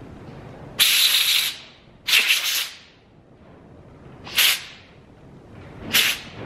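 Four short hissing blasts of pressurized spray into a chainsaw carburetor and its fuel hoses; the first two last about half a second or more, the last two are briefer.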